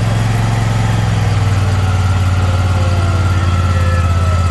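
Spartan zero-turn mower's 25 hp, 724 cc two-cylinder Briggs & Stratton engine running steadily, just cold-started for the first time that season. Its pitch settles a little lower about a second in.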